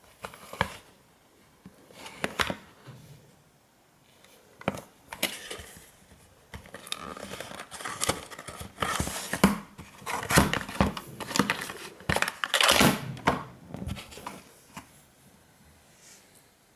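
Small cardboard medicine box being opened by hand: scraping, crinkling and sharp clicks of paperboard as the end flap is worked open and the contents pulled out, loudest in the middle and dying away near the end.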